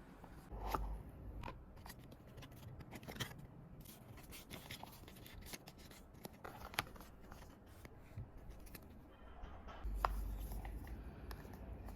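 Small, sharp plastic clicks and taps from handling an artisan keycap, scattered irregularly, with a louder click and a low handling bump about ten seconds in.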